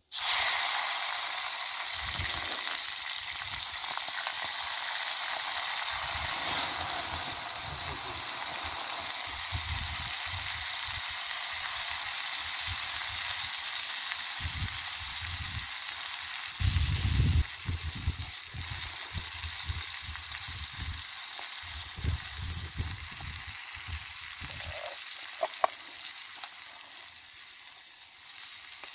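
Bamboo worms sizzling in hot oil in a small pan over a wood fire. The sizzle starts suddenly as they go into the oil and eases off slowly, with a few low bumps from handling.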